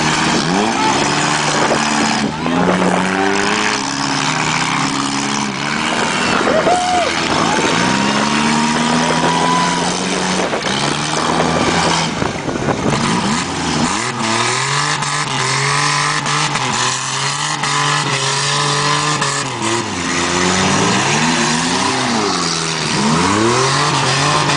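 Several four-cylinder demolition derby cars' engines revving up and down hard as they ram and shove one another, with a few sharp knocks of impacts.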